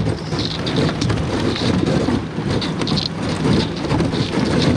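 Thin lake ice, about half an inch thick, cracking and crunching against a small boat's hull as the boat is pushed through it: a dense, irregular crackle.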